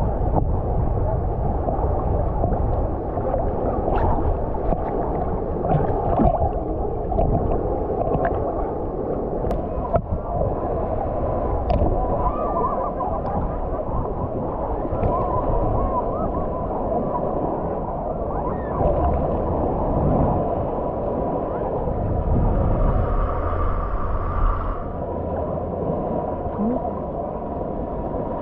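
Sea water sloshing and lapping around a camera held at the water's surface, a dull rushing wash with little treble and small ticks of splashes.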